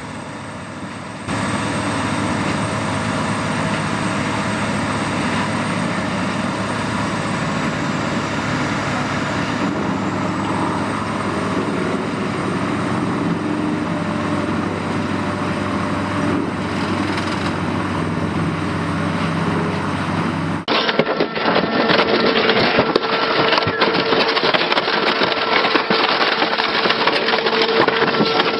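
Morbark 3200 Wood Hog horizontal grinder running steadily as it grinds wood. About two-thirds of the way in, the sound cuts abruptly to a harsher, noisier machine grinding with a steady whine.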